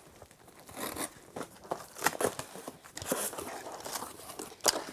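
A small parts box being opened and its packaging rummaged through: irregular rustling and crinkling with scattered small clicks and knocks.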